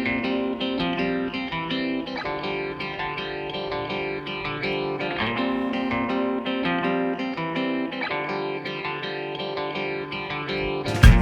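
Background music of plucked guitar notes with a steady rhythm.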